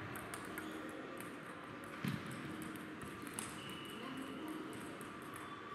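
Low hum of a large sports hall with a few scattered table tennis ball clicks from play at other tables, the clearest about two seconds in and a lighter one about a second later.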